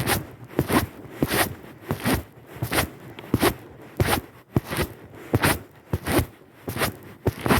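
Steady crunching footsteps on a stony, gravelly trail, about two to three steps a second.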